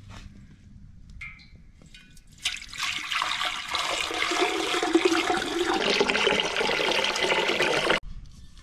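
Water pouring, starting about two and a half seconds in and cutting off suddenly near the end.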